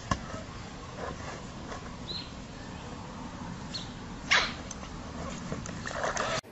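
A pug nosing a ball along paving: scattered scuffs and knocks over a steady hiss. The loudest is a single sharp sound about four seconds in, and a flurry of scuffling comes near the end.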